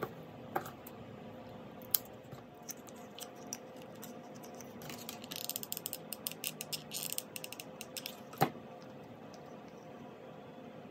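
Hands handling wooden craft sticks and jute twine: scattered small taps and clicks, with a few seconds of rapid light ticking and rustling in the middle and a sharper click near the end, over a faint steady hum.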